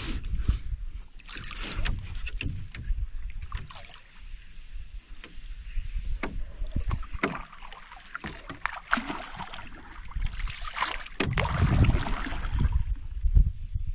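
Canoe being paddled across calm water: a wooden paddle dipping and pulling, with splashes and drips between strokes and small sharp knocks on the hull. A low rumble comes in near the end.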